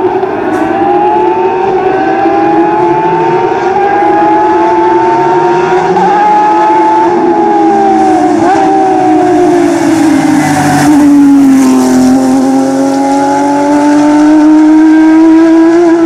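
Porsche 911 GT3-type rally car's flat-six engine running hard under throttle as the car approaches, its pitch climbing with small steps. About ten seconds in the car passes with a burst of tyre hiss on the wet road, the engine note falls, then climbs again as the car pulls away.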